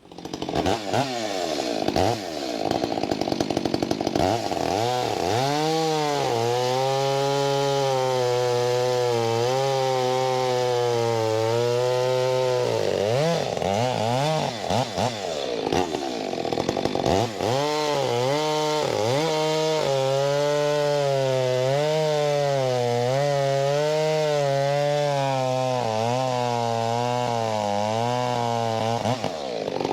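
Stihl two-stroke chainsaw bucking maple logs into firewood rounds. The engine runs at high revs and its pitch sags and wavers as the chain loads up in the wood, in two long cuts with a few seconds of looser running between them.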